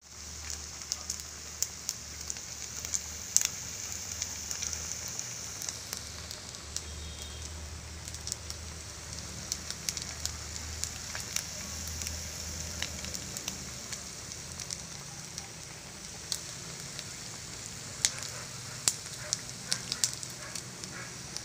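Leftover suman, Filipino sticky rice rolls, frying in oil in a pan: a steady sizzle with scattered sharp pops and crackles.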